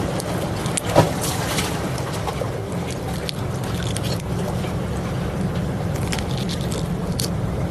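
Strong wind rumbling on the microphone over surf noise, with a few scattered clicks and knocks, the sharpest about a second in.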